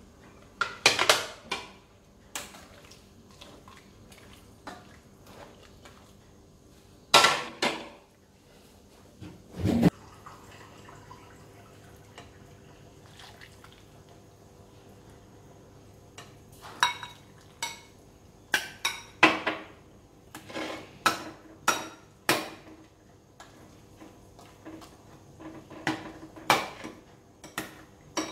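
Metal ladle clinking against a glass bowl over and over as soaked tamarind pulp is pressed and stirred in water, after a few loud clatters of dishes and a dull thump in the first ten seconds.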